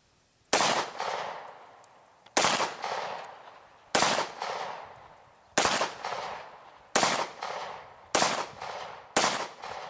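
Seven single shots from a Hi-Point C9 9mm pistol, the first about half a second in, each trailing off over about a second. The shots come quicker as the string goes on, from nearly two seconds apart to about one.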